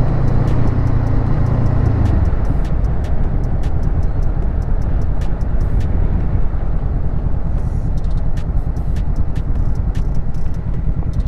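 Honda CBR500R motorcycle's parallel-twin engine running on the move. A pitched engine note drops away about two seconds in, leaving a steady low rumble with rapid firing pulses and scattered ticks.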